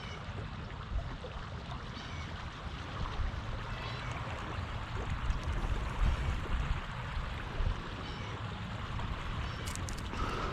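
Steady rush of flowing water in a sewer channel, with an uneven low rumble underneath.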